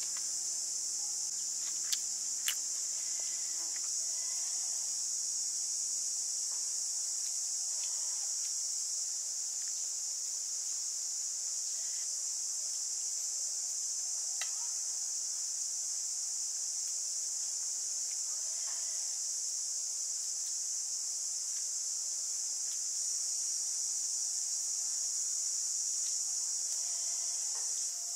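A steady, high-pitched insect chorus buzzing, with two short clicks about two seconds in.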